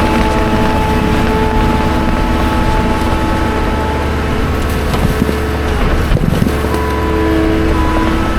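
Skid steer engine running steadily under load, a continuous low rumble with held whining tones above it.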